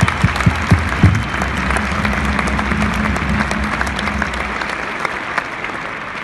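Arena crowd applauding. A fast run of low beats, about five a second, ends on a louder beat about a second in, and a steady low tone holds for a couple of seconds after that.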